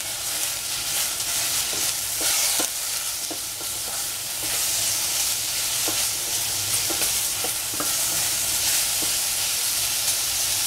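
Mushroom pieces sizzling steadily in hot oil in a stainless steel pot, stirred with a wooden spatula that gives scattered light knocks and scrapes against the pot.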